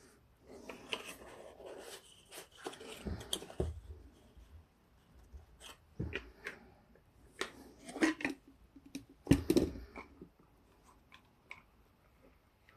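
Irregular handling noises: clicks, taps and short rustles of objects being picked up and set down, with a few louder knocks about a third of the way in and again past the middle.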